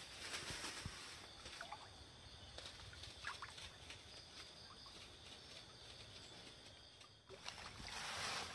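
Faint night-time stream ambience: a steady insect drone with short chirping animal calls and scattered clicks. Near the end, water sloshes and sticks rustle as hands work through the debris in the shallow water.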